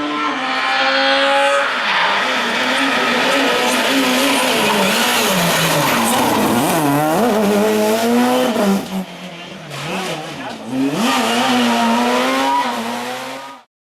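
Rally car engine at full load, its pitch climbing and dropping sharply again and again as it accelerates, changes gear and brakes for corners; it cuts off suddenly near the end.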